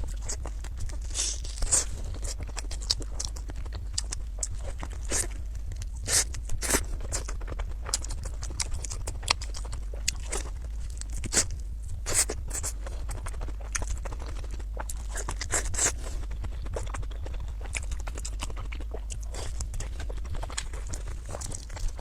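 Close-miked eating: chewing and biting into food, with irregular sharp wet clicks and crunches, over a steady low hum.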